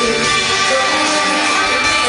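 Live rock band playing loud through an arena PA, electric guitar to the fore, heard from among the crowd.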